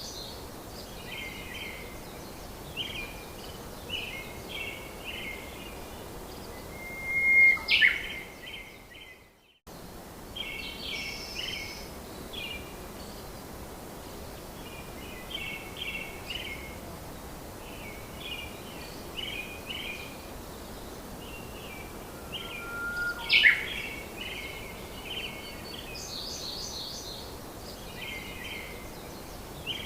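Birds chirping in repeated short clusters of high calls over a steady hiss, with two louder, sharper calls. The sound fades and cuts out briefly about nine seconds in, then resumes.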